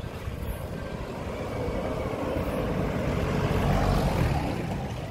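A road vehicle passing by on the street, its engine and tyre noise growing louder to a peak about four seconds in, then fading.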